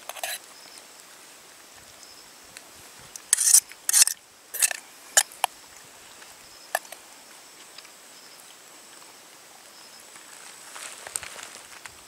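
Folding metal spork scraping and clinking against a metal camping pot while scooping noodles: a quick run of short scrapes about three to five seconds in, and a few single clicks before and after.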